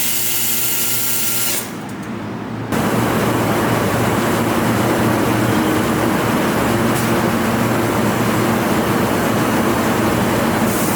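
High-power fiber laser cutting machine: a steady whine made of several fixed tones, which drops away a little under two seconds in. About a second later a loud, steady rushing hiss sets in and carries on, the sound of the cut in thick stainless steel.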